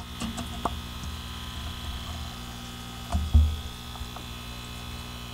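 Vintage Supra 4 aquarium air pump running with a steady electric hum, noisy because of its age. A low thump comes about three seconds in.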